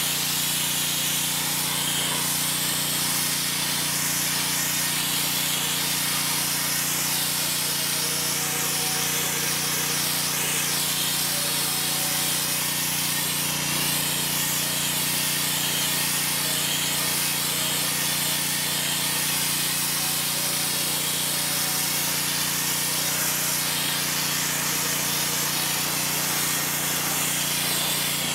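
Pressure washer with a wet sandblasting attachment blasting water and sand onto a rusty steel cement mixer frame, stripping paint and rust to bare metal: a steady spray hiss with a steady low hum underneath.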